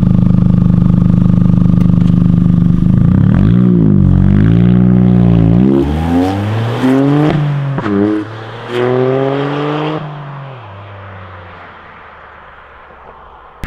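Toyota GR Yaris turbocharged three-cylinder engine with an Aulitzky exhaust, running steadily at first, then revving up and down several times. About ten seconds in its pitch falls away and the sound fades.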